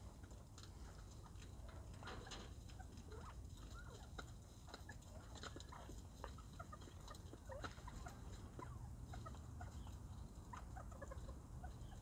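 Soft, faint chirps and clucks of several northern bobwhite quail while they feed, with small scattered clicks.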